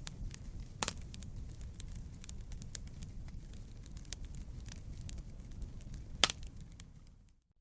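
Wood fire crackling in a fireplace: a steady low rumble of burning logs with many sharp snaps and pops, two louder pops about a second in and near the end. The sound drops away at the very end.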